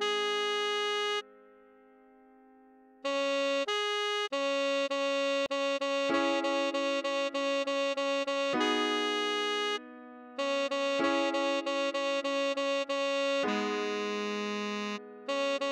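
Tenor saxophone melody over piano chords at a slow tempo: a held A#, then runs of rapidly repeated D# notes. It stops for about two seconds a little over a second in, and breaks briefly near 10 s and again near the end.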